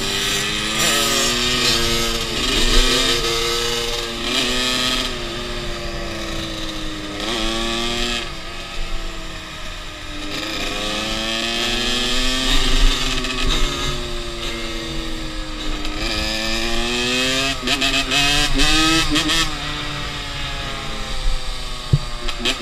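Dirt bike engine running under way, its pitch climbing and then dropping again and again as it accelerates and shifts through the gears.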